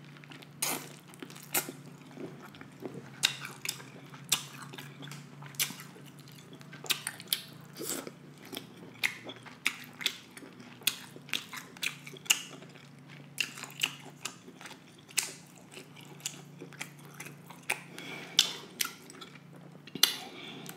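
Close-miked chewing of soft, buttery deshelled seafood (lobster and prawns): wet mouth smacks and clicks, irregular, about one or two a second.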